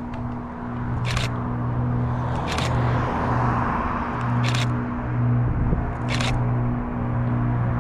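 Antonov An-22's turboprop engines with contra-rotating propellers running at low power: a steady low drone with a higher hum above it, and four short hissing swishes about every one and a half to two seconds.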